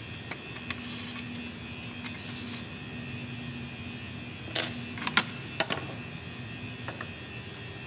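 Cordless drill/driver spinning briefly twice, backing out the bolts of a plastic engine cover. About five seconds in come a few sharp clicks and knocks as the plastic cover is pulled off its mounts.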